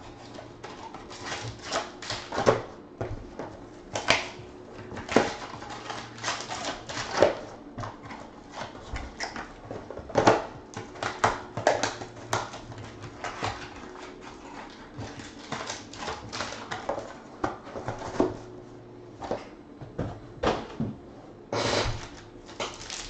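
Foil-and-plastic trading card pack wrappers crinkling and crackling as they are handled and torn open, with irregular sharp crackles and light taps, and a longer rustle near the end.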